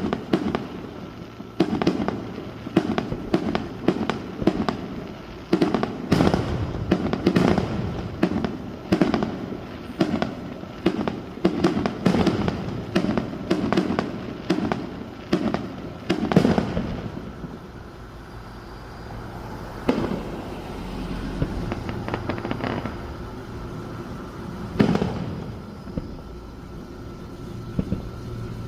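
Fireworks going off: a rapid string of bangs and crackles, one or two a second, for about the first sixteen seconds, then a lull broken by a single bang about twenty-five seconds in and another at the very end.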